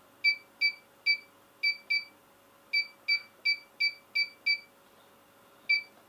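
LTLCDGSM alarm control panel's keypad beeping as a phone number is keyed in, one short high beep per key press. About a dozen beeps come in an uneven typing rhythm, with a pause of about a second before the last one.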